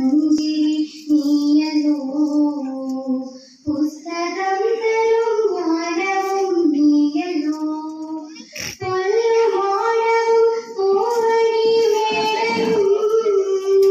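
A girl singing solo into a microphone, an unaccompanied melody of long held notes that step up and down. A brief knock about nine seconds in.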